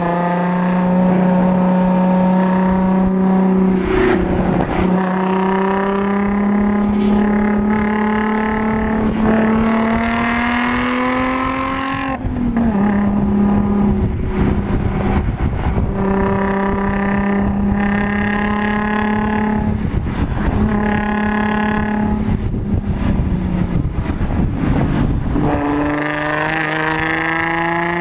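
Audi S4's supercharged V6 with an AWE Touring exhaust, heard from inside the cabin while driven hard on track. The engine note climbs steadily with revs, drops sharply about twelve seconds in, runs fairly level, then climbs again near the end.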